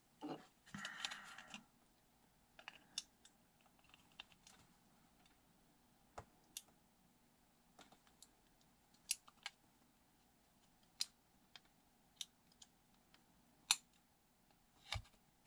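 Small 3D-printed plastic airsoft pistol parts clicking and scraping as they are pressed into place by hand: a short rustle near the start, then scattered sharp light clicks, the loudest near the end.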